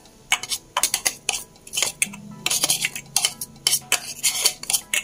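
Irregular clinks, knocks and scrapes of a container and utensil against a ceramic plate as coarsely ground ginger and garlic paste is knocked out onto it.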